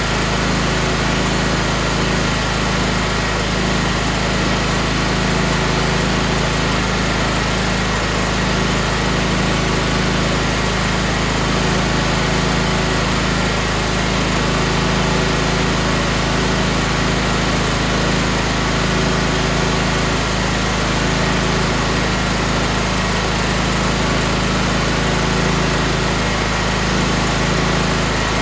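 Tractor engine running at a steady, unchanging speed.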